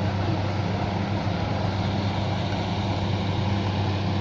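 Excavator's diesel engine running at a steady speed, a constant low hum.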